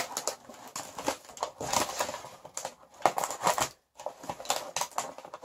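Brown kraft-paper wrapping and the plastic film inside it crinkling and rustling as a parcel is pulled open by hand, in irregular bursts with a brief pause a little before four seconds in.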